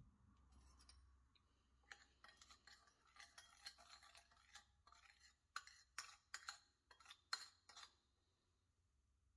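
Metal spoon stirring a watery chilli-powder mix in a small ceramic bowl, with faint, irregular clinks and scrapes against the bowl. The clinks start about two seconds in, grow louder and closer together, then stop shortly before the end.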